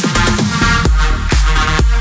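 Electronic dance music with a steady kick drum about twice a second; the beat drops out briefly at the start and comes back under a second in.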